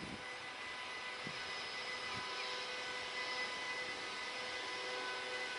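Electric trains at a station platform: a steady electric whine with several high, even tones over a hiss, growing slowly louder as an ICE train creeps in at low speed.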